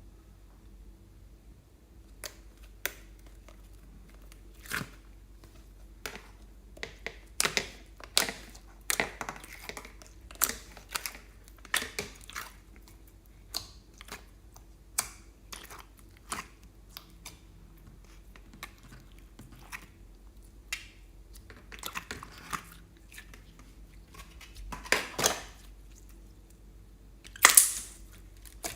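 Slime being squeezed and worked by hand, giving irregular sticky pops, clicks and crackles that come in clusters, with one louder crackling burst near the end.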